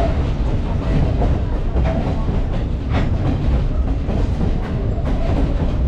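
Excursion train rolling along the track, heard from an open-air passenger car: a steady heavy rumble of wheels on rail, with sharp clicks over the rail joints about once a second for a while.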